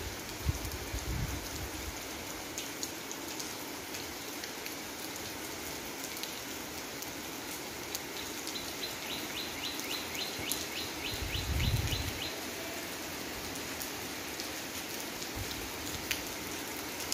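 Steady heavy rain falling on a paved courtyard, an even hiss of drops splashing on wet concrete. About halfway through, a rapid run of high ticks sounds for a couple of seconds over the rain.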